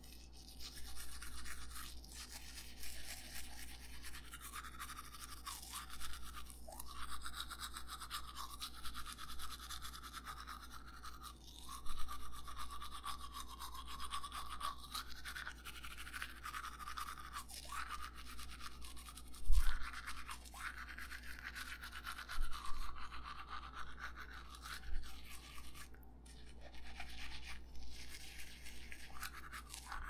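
A toothbrush scrubbing teeth: continuous wet bristle scratching that swells and dips with the back-and-forth strokes. A single low thump stands out about two-thirds of the way through.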